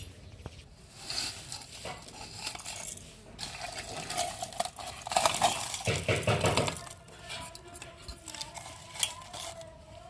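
Steel spoon and utensils clinking and scraping as roasted whole spices are moved from the pan into a mixer jar for grinding, with the loudest rattling about five to seven seconds in.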